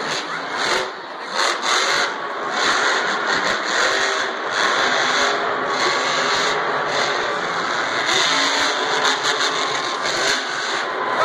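Monster truck's supercharged V8 engine revving hard, rising and falling over and over as the truck wheelies and spins in the dirt, echoing through the stadium.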